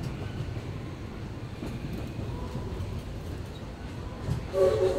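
Passenger car of a steam-hauled narrow-gauge train rolling along the track: a steady low rumble of the wheels and running gear. Near the end a short chord of steady tones sounds over it.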